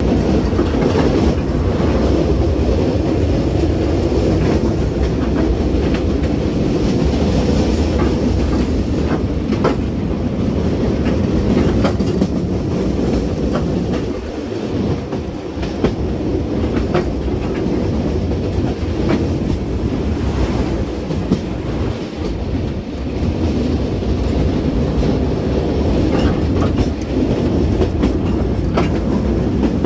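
Sóller electric tram running along its track, heard from the open car: a steady low rumble of wheels on rails, with scattered sharp clicks and knocks as the wheels pass over rail joints.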